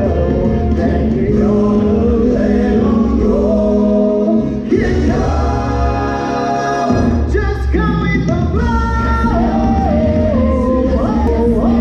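Stage musical song: several voices singing together over a full band with a strong bass line. About five seconds in, the bass drops out for roughly two seconds and then comes back in.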